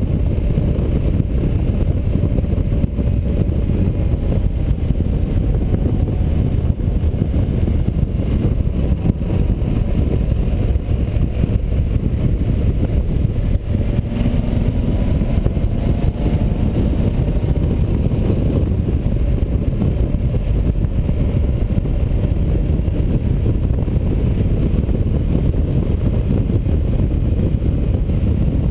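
A motorcycle at road speed: a Yamaha Super Tenere's parallel-twin engine running under a steady rush of wind on the microphone, with faint rises and falls in engine pitch through the bends.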